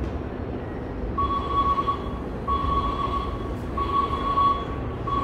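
Electronic warning beeper on a station platform, a steady mid-pitched tone sounding in beeps about a second long, starting about a second in and repeating roughly every 1.3 seconds, over the low rumble of a train standing at the platform.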